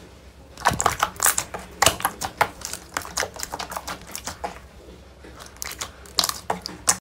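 Slime being squeezed and poked, giving irregular runs of sharp, wet clicks and pops, thickest in the first half and again near the end.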